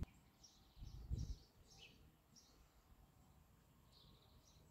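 Faint bird chirps: half a dozen short, high calls spread through the quiet, with a brief low rumble about a second in.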